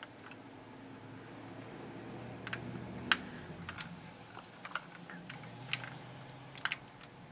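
Light, irregular clicks and taps from a 1:18 diecast model car being handled, fingers working at it to switch on its scanner light.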